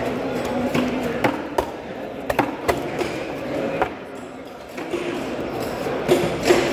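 Heavy knife chopping barracuda into steaks on a cutting board: repeated sharp chops at an uneven pace, some through bone. A murmur of voices runs underneath.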